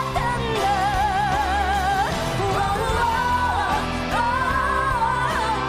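Live performance of a Japanese pop song: a woman sings long held notes with vibrato over piano and band accompaniment, rising to a new note about two seconds in and again about four seconds in.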